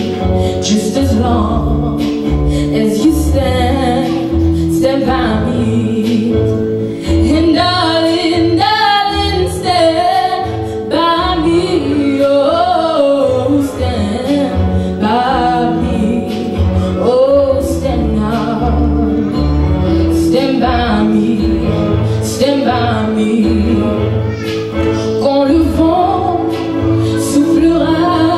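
A young woman sings solo into a handheld microphone over recorded backing music with a steady low beat.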